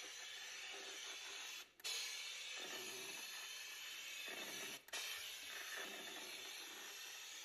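Compressed-air hiss of a powder coating gun spraying black powder onto a metal part: a steady hiss that breaks off for a moment twice.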